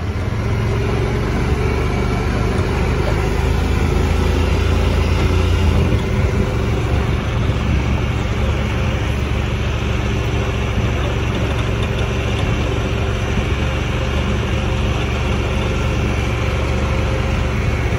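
A motor vehicle being driven: a steady low engine hum with road noise.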